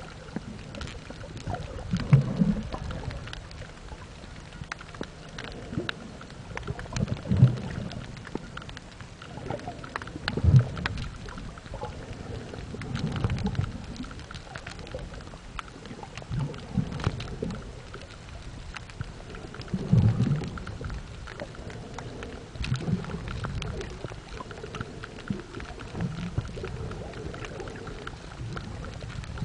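Underwater sound picked up by a camera in shallow reef water: low whooshing surges of moving water every two to three seconds over a constant light crackle.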